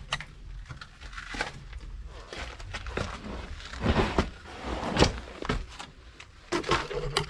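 Movement noise from a person squeezing through a narrow rock crevice: scuffing footsteps, clothing and backpack rustle, and the camera rubbing and knocking against the rock, in irregular scrapes and bumps, the loudest about four and five seconds in.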